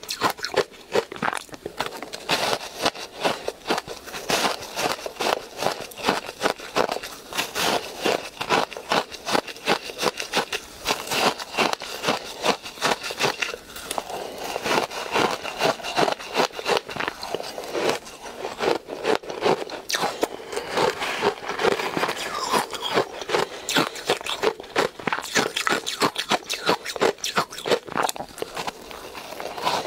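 Close-miked crunching of soft, powdery ice coated in matcha powder, bitten and chewed in rapid, dense crunches, with the metal spoon scraping through the ice.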